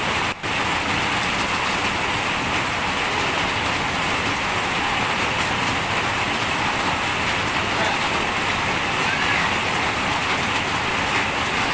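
Steady rain falling, an even hiss, with a brief break about half a second in.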